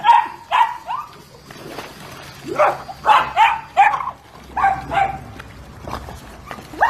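Dachshunds barking: about ten short, sharp barks in quick runs of two or three, with brief pauses between the runs.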